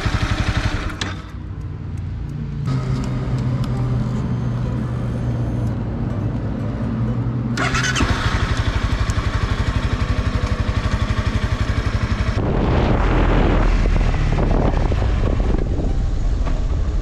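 Honda CBR300R's single-cylinder engine running at idle with the bike stopped, faltering, with a faint metallic knocking from the engine that marks the start of a crankshaft failure. About twelve seconds in the bike moves off, and engine and wind noise take over.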